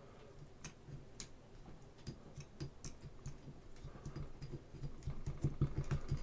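Faint, irregular small clicks and taps from hands working a tool into a resin model part, over a low background hum.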